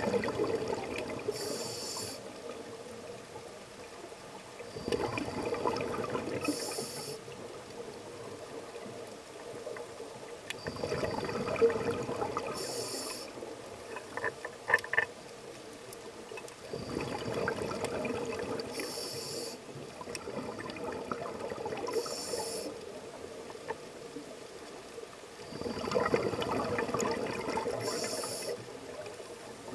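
Scuba regulator breathing underwater: a short, high hiss as each breath is drawn, then a longer bubbling gurgle of exhaled air, repeating about every five to six seconds. A few sharp clicks come about halfway through.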